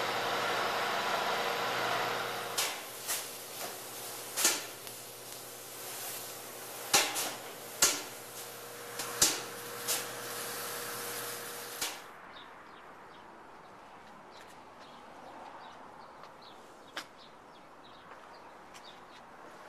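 Spray gun hissing steadily as spray-in bedliner is sprayed, over a steady machine hum, with several sharp pops along the way. About twelve seconds in it cuts off suddenly to a much quieter background with a single faint click.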